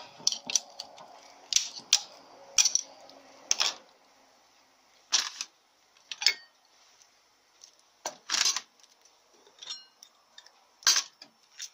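Steel clutch drum and hub parts from a Mazda FN4A-EL / Ford 4F27E automatic transmission clinking and knocking against each other and a metal tray as they are handled and lifted apart: about a dozen sharp metallic clicks at irregular intervals, a few with a short ring.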